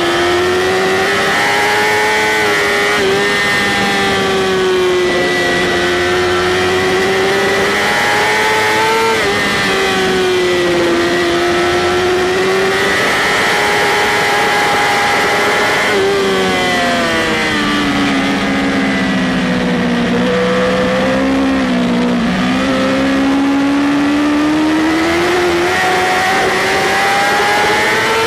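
BMW S1000RR's inline-four engine revving hard on track, its pitch climbing as it accelerates and dropping as it brakes and downshifts for corners, falling lowest about two-thirds of the way through before climbing again. Constant wind rush runs underneath.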